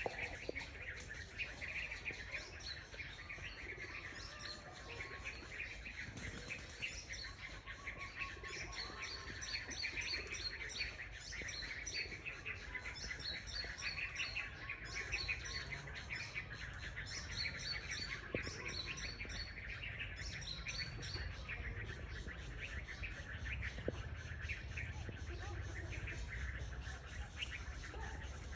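Many small birds chirping and calling, a dense overlapping chorus of short repeated chirps, with a steady low rumble underneath.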